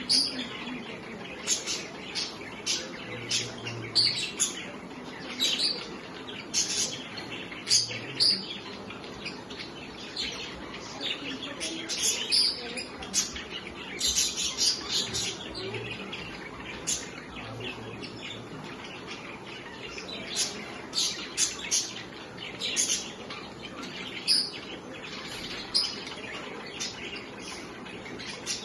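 Pet budgerigars chirping and chattering: many short, high chirps in irregular runs, some much louder than others, over a steady background hiss.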